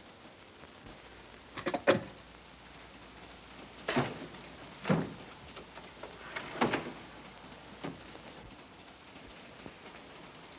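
A series of sharp knocks over a steady hiss: a quick cluster about two seconds in, then single knocks roughly a second apart, the last one fainter.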